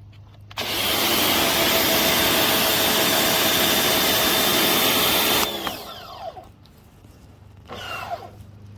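Sun Joe SPX2688-MAX electric pressure washer switched on: its motor and pump run with a loud hissing spray for about five seconds, then cut off suddenly and wind down. The unit is leaking from a broken fitting, and as soon as it is turned on it 'just goes nuts'.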